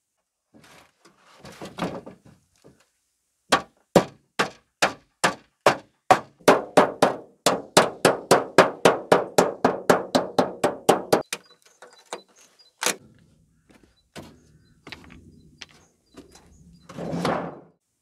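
Hammer beating a thin chrome-steel sheet cut from a water-heater tank's outer shell. The strikes come in a long fast run with a metallic ring, speeding up to about four a second, then give way to a few scattered knocks.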